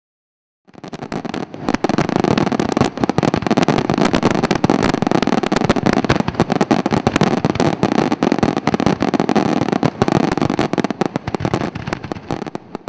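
Fireworks display: a dense, continuous barrage of rapid bangs and crackles. It starts under a second in and thins out near the end.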